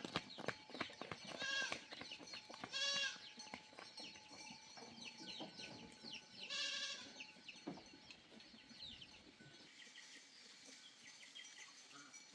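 Goats bleating, three drawn-out wavering calls in the first seven seconds, with faint short chirps between them.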